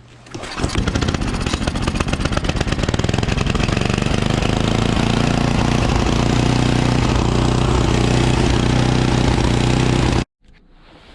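Snowblower's small gasoline engine running loud and steady at a fast, even pace. It comes in suddenly just after the start and cuts off abruptly about ten seconds in.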